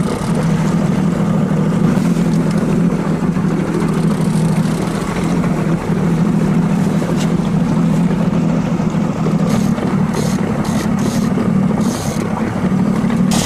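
Fishing boat's engine running steadily at low revs, a constant low hum, with a few short hissy bursts about ten seconds in.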